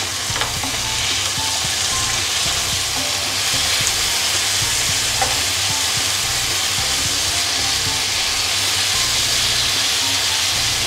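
Chopped tomatoes, onions and aromatics sizzling in coconut oil in a wok as they are stirred with a wooden spatula: a steady sizzle with a few light knocks of the spatula.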